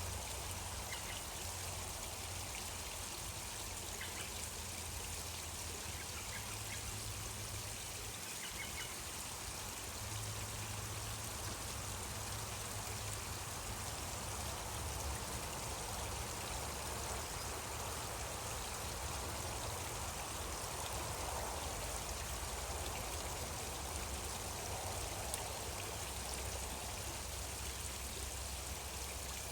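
Water of a small stream flowing steadily, a continuous even trickling and rushing.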